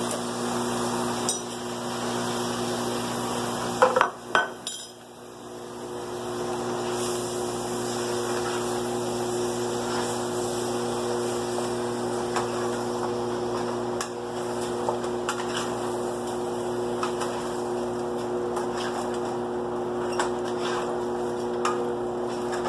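A spoon stirring raw chicken through fried curry spices in a cooking pot, with scattered clinks and scrapes against the pot and a louder clatter about four seconds in. A steady hum and hiss run underneath.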